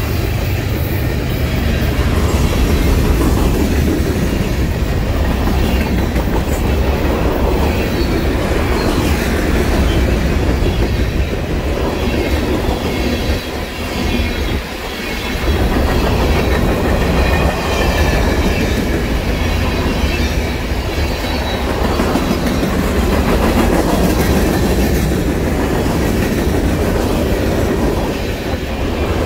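Freight train cars (tank cars, covered hoppers and gondolas) rolling past at close range: a loud, steady rumble and clatter of steel wheels on rail, with faint wavering wheel squeal over the top. The sound dips briefly about halfway through.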